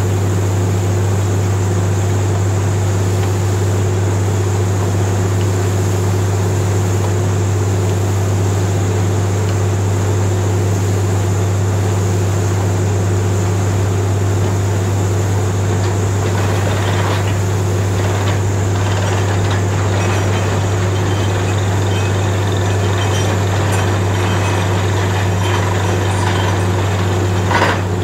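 Truck-mounted borewell drilling rig running steadily while drilling: a constant low engine-and-compressor drone with a steady high whine, over the hiss and splatter of mud and water being blasted out of the bore. A short louder burst comes near the end.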